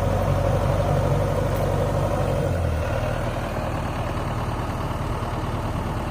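JCB 3DX backhoe loader's diesel engine running steadily at idle, its note dropping a little about halfway through.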